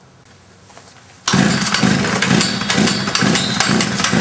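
Tecumseh TC200 two-stroke engine being cranked over for a compression test with its spark plug out. The cranking starts suddenly about a second in, a loud, rapid pulsing chug of about three beats a second. The gauge reads about 90 PSI, a little low, which could explain the engine's hard starting.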